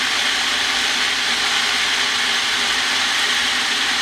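Nutribullet blender running steadily at full speed, grinding fresh herbs, peppers and cloves into a seasoning paste.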